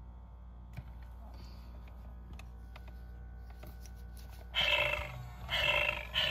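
FurReal Friends Daisy toy kitten's built-in speaker playing electronic cat meows, three short calls in quick succession in the last part, set off by stroking its chin and head. Before them, only a few faint clicks from handling the toy.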